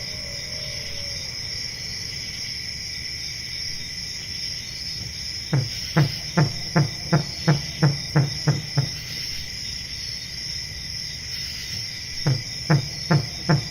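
Steady high insect chirring, with two bouts of short, low pulsed calls repeated about three times a second, the first about five seconds in, the second near the end.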